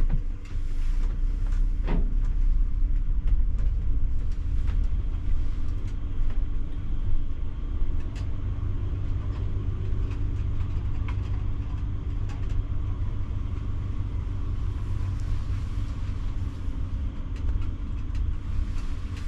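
Coach's diesel engine running, heard from inside the cabin: a steady low rumble with a faint hum and scattered small clicks and knocks.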